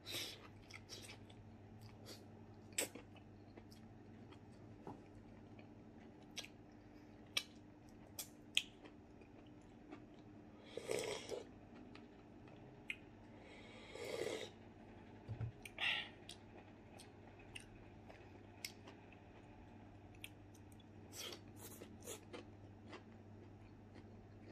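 Close mouth sounds of a person eating: scattered crunches and chewing of crisp-cooked vegetables, with two longer slurping sips from a bowl around 11 and 14 seconds in.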